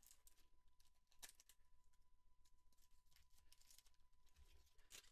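Near silence, with a few faint ticks and soft rustles of a Pokémon booster pack and its cards being handled.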